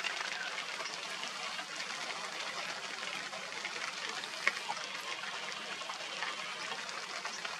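Steady, crackly hiss of background noise with no distinct source, broken by a single sharp tick about four and a half seconds in.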